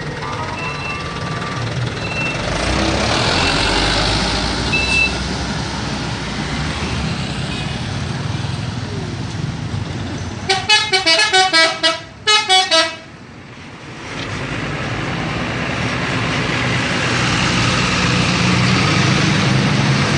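A bus's telolet horn, a multi-tone musical air horn, blasts a rapid run of notes in two quick bursts about ten seconds in, over the bus engine. The engine rises again afterwards as the bus moves off. A few short melody tones are heard near the start.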